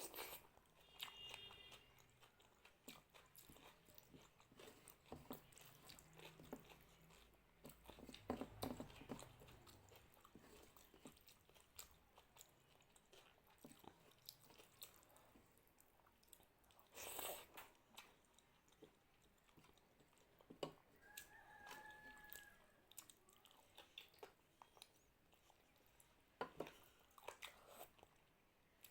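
A person chewing a mouthful of mutton curry and rice close to the microphone: faint, irregular wet mouth clicks and crunches, with a few louder bites.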